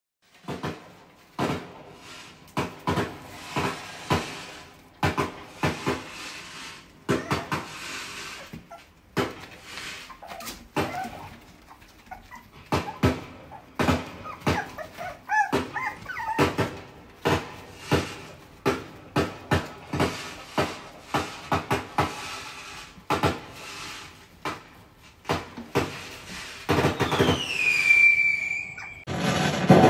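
Cockapoo puppies yapping and yipping, many short, sharp yaps in quick, irregular succession.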